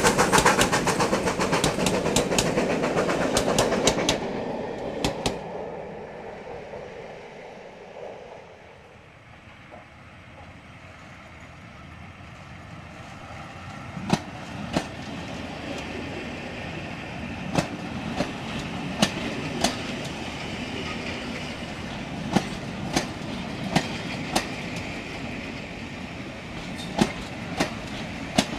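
BR Standard Class 5MT steam locomotive and its Royal Mail travelling post office vans passing close by. The locomotive's noise is loud for about the first four seconds and then dies away. From about halfway the vans roll past with sharp clicks of wheels over rail joints, often in pairs.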